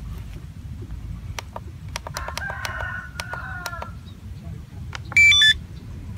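A rooster crows once, about two seconds in, in one long call. About five seconds in, the Walkera Devo 7E radio transmitter gives a short, loud run of electronic beeps that step in pitch, as the Tarantula X6 model is loaded for binding.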